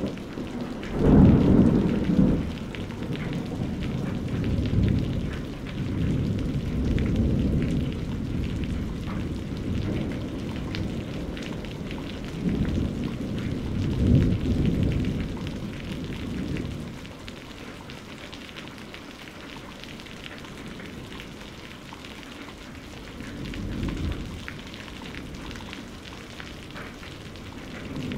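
Ambient background soundtrack: low rumbling swells that rise and fade several times over a steady hiss, like distant thunder and rain.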